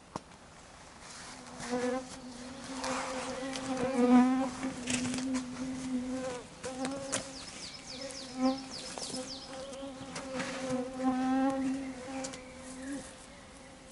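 A flying insect buzzing close to the microphone: a wavering hum that fades in and out as it circles, from the dense cloud of insects around the camp. Light rustling of clothing and gear runs underneath.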